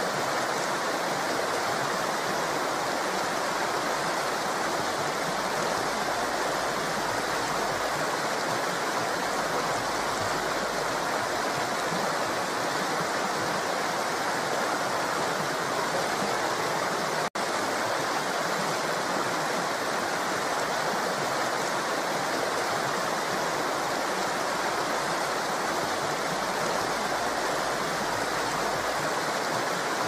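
Steady rushing of falling water from a waterfall, with a split-second dropout about seventeen seconds in.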